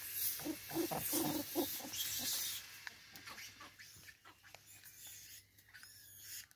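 Vervet monkeys feeding close by: a quick run of short low grunts over rustling in the first two seconds or so, then soft scattered clicks.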